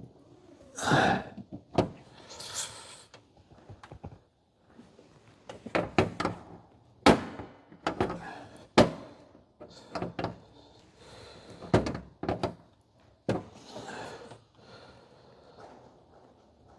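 Irregular sharp metallic clicks and knocks with short scrapes: a cabinet cam lock being turned in its hole and its nut tightened with pliers.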